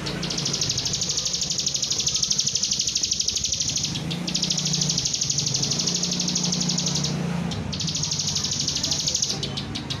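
Caged bar-winged prinia (ciblek) singing a fast, high trilled song in three long phrases, with short breaks about four seconds in and again near the end. A low hum runs underneath.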